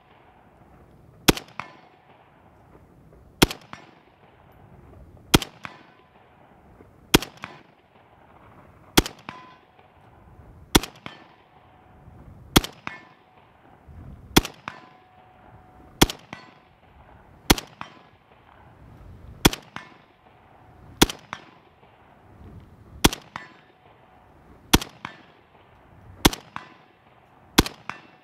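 Single rifle shots from a 7.62×51 NATO battle rifle fired slowly and steadily, about one every two seconds, fifteen in all. Each crack is followed by a short ringing decay.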